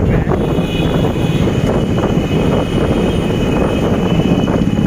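Road noise from riding in a moving vehicle in traffic: engine and tyre noise with wind rumbling on the microphone. A steady high whine joins shortly after the start.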